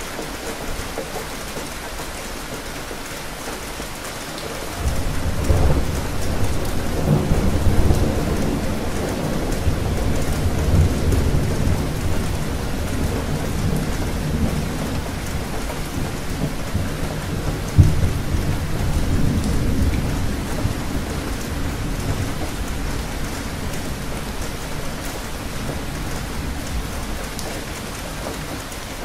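Steady rain with a long roll of thunder: the rumble starts suddenly about five seconds in, swells, breaks into a sharp crack partway through, then slowly dies away near the end while the rain goes on.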